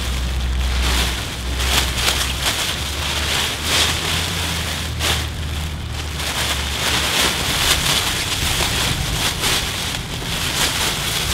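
Metallised foil thermal wrap crinkling and rustling as it is unfolded, stepped into and pulled up around the body: a dense, continuous crackle of many small crinkles. A low wind rumble on the microphone runs under it for the first several seconds.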